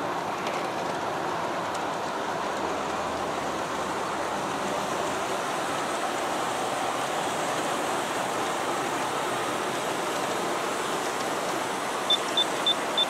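G scale model freight train of many cars rolling along garden-railway track: a steady rattling rush of metal wheels on rail. Near the end comes a quick run of about six short, high beeps.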